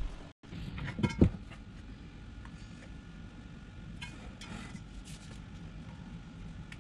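Thick cheese batter being tipped and scraped out of a plastic bowl into a round metal pan: two sharp knocks a little after a second in, then soft scraping around four to five seconds.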